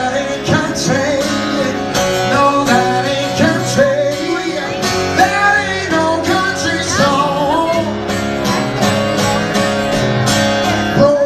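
Live country music: an acoustic guitar strummed under a man singing into a microphone.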